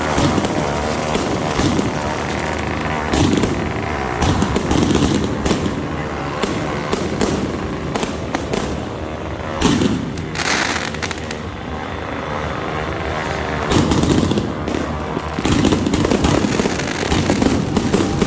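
Consumer fireworks from a Dragon family package going off: an irregular run of crackling pops and bangs, with a short hiss about ten seconds in.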